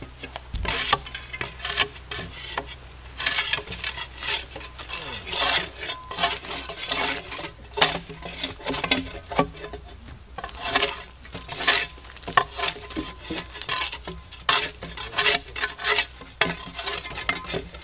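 A steel spade blade scraping bark off logs in repeated, irregular strokes, about two a second: the logs are being debarked.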